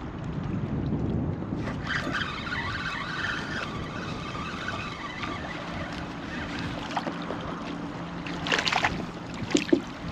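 A fishing reel winding in a hooked white perch, with a steady whirr from about two seconds in to about five seconds in, against wind noise on the microphone. Near the end comes a short splash as the fish is lifted out of the water, followed by a couple of sharp clicks.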